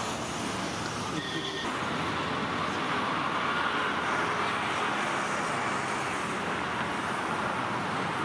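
Steady road traffic noise, an even rush with no clear events.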